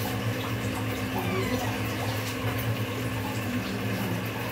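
A steady low hum, as from a running motor or fan, over an even background noise.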